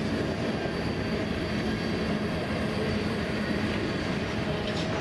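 Freight train's covered hopper cars rolling past, a steady rumble of steel wheels on rail with a thin high tone over it. A few faint clicks come near the end.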